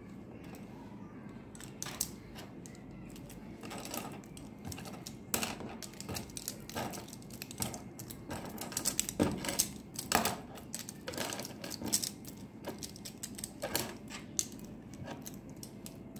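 Loose plastic BIC ballpoint pens clicking and clattering against each other as they are picked up one by one and gathered into a bundle by hand. The clicks come irregularly and grow thicker and louder in the middle.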